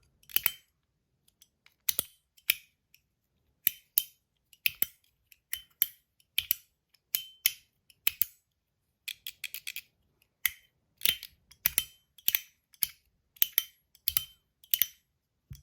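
PEI Musketeer fidget clicker being clicked over and over: sharp, high-pitched clicks with a short ring after each, irregular, often in quick pairs, about two a second.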